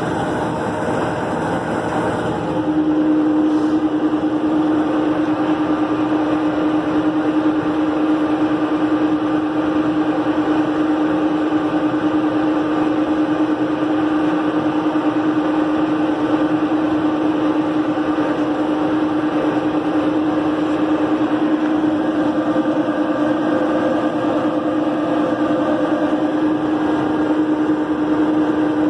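Tractor engine running steadily under load, driving a New Holland 488 haybine mower-conditioner while cutting hay. The hum steps up and gets louder about two and a half seconds in, then holds a steady tone.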